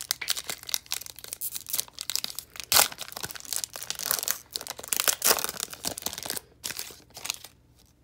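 Foil wrapper of a Score football card pack crinkling and tearing as it is ripped open by hand: a dense run of sharp crackles that thins out about six seconds in and stops near the end.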